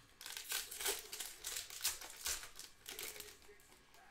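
Foil wrapper of a trading-card pack crinkling as hands work it open: a dense run of crackles that thins out near the end.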